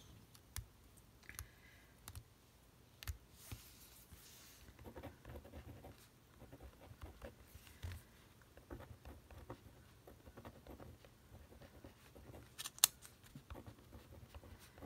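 A 0.5 mm gel pen writing on a paper card, heard as faint, uneven scratching strokes. A few light handling clicks come early on, and one sharp click comes near the end.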